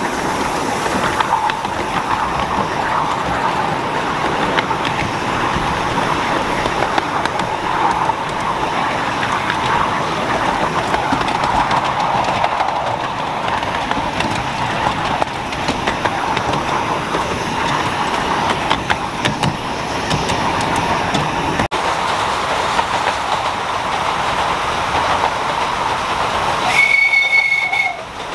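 Miniature railway train running, with a steady rumble of wheels on the track. Near the end a locomotive gives one short, high whistle.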